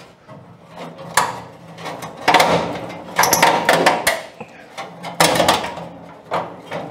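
Rusty steel grille bars of a Chevy Advance Design truck nose clip scraping and clanking in a series of short bursts as they are pulled and bent straight by hand.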